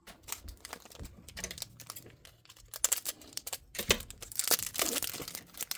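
Foil booster-pack wrapper being crinkled and torn open by hand, an irregular crackling and ripping with louder bursts near the middle and end.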